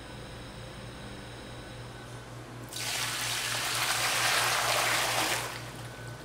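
Water poured from a jug into a large stainless steel mixing kettle, splashing loudly for about three seconds, starting about three seconds in and tailing off near the end. Before the pour there is only a steady low hum.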